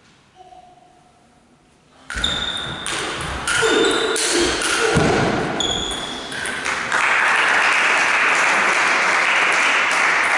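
A table tennis rally begins about two seconds in: the ball pings and clicks off the bats and table several times in quick succession. Then the point ends and the crowd breaks into steady applause.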